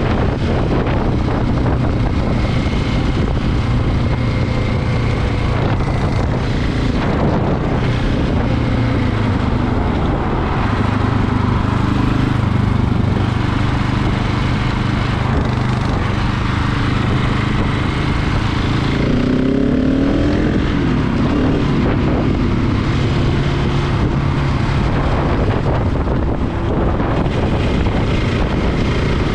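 KTM 690 single-cylinder motorcycle engine running steadily at highway cruising speed, with heavy wind noise on the microphone.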